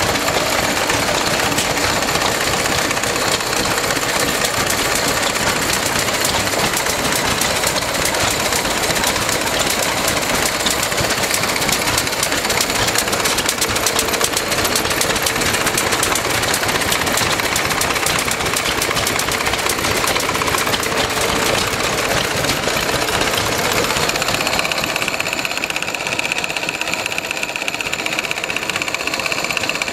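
Vintage stationary engines running steadily, a fast even beat of firing strokes. About 24 seconds in the sound changes as a different engine is heard from closer.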